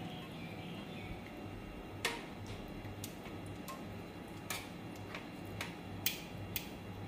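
Metal tongs clicking and tapping against a stainless steel bowl and the wire rack of an electric grill as marinated pork is set on it: about seven short, sharp clicks at uneven intervals over a low steady hum.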